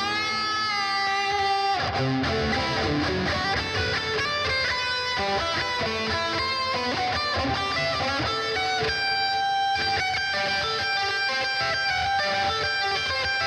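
Electric guitar music: a lead line of long held notes and quick runs of picked notes.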